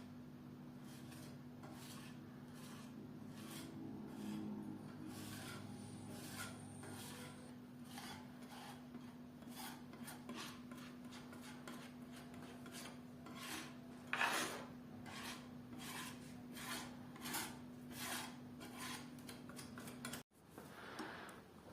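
Repeated rasping hand strokes on the wood of an old dresser as its old paint is stripped off, about one or two strokes a second, fairly faint. A steady low hum runs underneath and cuts off suddenly near the end.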